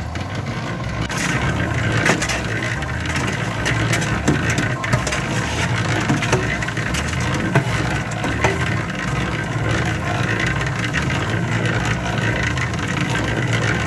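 Portable cement mixer running, its drum turning a wet concrete and mortar mix. There is a steady, pulsing low drone, with scattered clicks and rattles from the tumbling mix.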